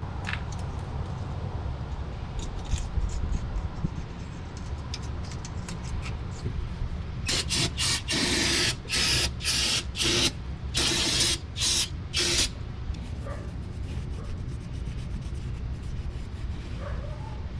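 Aerosol spray can being sprayed in about eight short hissing bursts, some lasting around a second, in the middle of the stretch, over a steady low hum; light clicks and taps come before.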